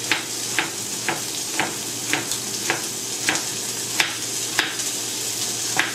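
Kitchen knife slicing an onion on a wooden chopping board, a sharp tap of the blade on the board about twice a second. Under it, a steady sizzle of crumb-coated chicken breasts frying in the pan.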